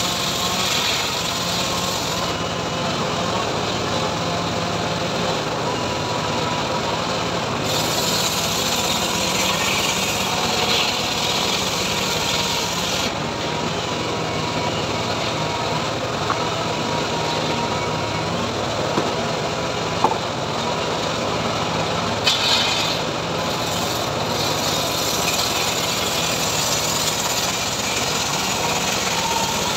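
Engine-driven homemade circular saw rig running steadily, its blade ripping a mahogany or teak plank lengthwise. The cutting rasp grows harsher in a few stretches, with a couple of sharp clicks.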